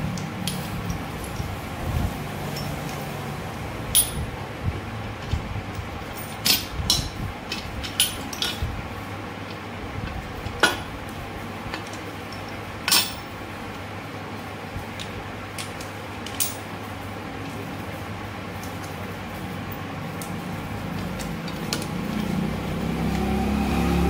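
Bajaj CT 100 gearbox shafts and steel gears being fitted by hand into the crankcase half, giving sharp metal clinks and light knocks now and then, most of them in the first half.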